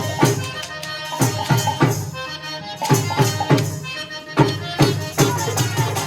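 Punjabi folk music of the Malwai giddha kind: a drum beating a steady rhythm under a sustained melody line. The drum strokes thin out briefly about two seconds in, then pick up again.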